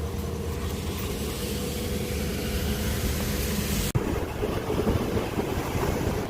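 Steady vehicle and road noise with wind buffeting the microphone, cut off abruptly about four seconds in and resuming at once.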